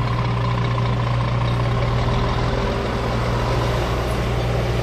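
Scania R-series truck's diesel engine running steadily at low revs as the truck creeps past at manoeuvring speed, an even low hum that does not change.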